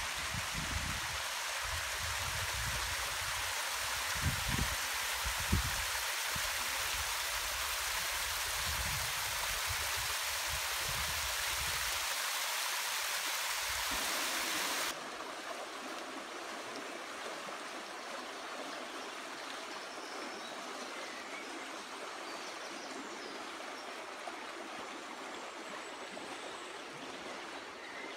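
Steady rush of flowing stream water, with low bumps of wind on the microphone through the first half. About fifteen seconds in it cuts to a quieter, steady rush of water.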